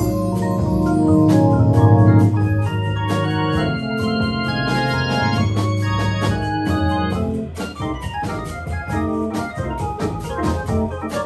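Live jazz band playing: an electric keyboard carries sustained chords and melody over a double bass line, with drum kit and conga hits throughout.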